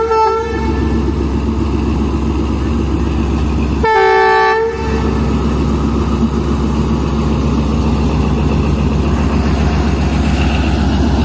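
Pakistan Railways ZCU-30 diesel-electric locomotive running steadily as it moves along the track, its horn sounding twice: the tail of one blast just at the start and a second blast, about a second long, about four seconds in.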